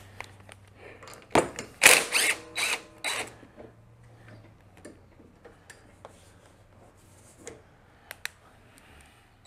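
Cordless drill-driver running in short bursts about one and a half to three seconds in, backing out screws, followed by scattered light clicks and rattles of parts being handled.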